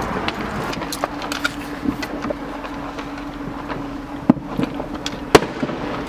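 Fireworks going off: an irregular run of sharp pops and cracks, with the loudest bangs in the second half.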